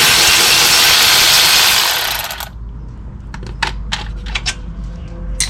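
A loud steady hiss, like spray or air being blown, that cuts off about two and a half seconds in, followed by a few light metallic clinks from brake parts being handled.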